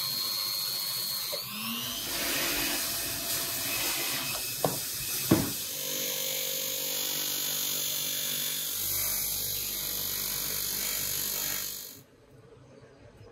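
Power tools running as a small metal part is ground and polished: a cordless drill spinning the part against a sanding disc on a rotary tool, then against a spinning polishing wheel. The whir rises in pitch about a second and a half in, two sharp clicks come about five seconds in, and the tools stop about twelve seconds in.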